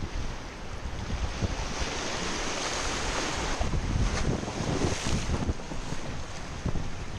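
Sea surf washing and foaming over shoreline rocks, the hiss of the wash swelling through the middle, with wind buffeting the microphone in irregular low rumbles.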